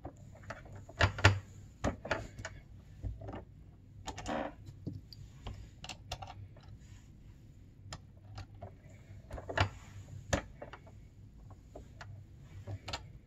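Brass cartridges and bullets being handled at a turret reloading press while bullets are seated: irregular light clicks and small metallic knocks. The sharpest knocks come about a second in and again near ten seconds.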